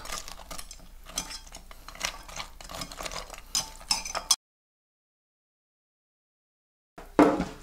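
Metal tongs clinking and scraping against a stainless steel pot while tossing sauce-coated fried chicken pieces, in scattered irregular clicks. The sound cuts off to dead silence about four seconds in.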